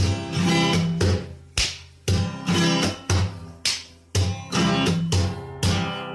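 Background music of an acoustic guitar strumming chords in a steady rhythm.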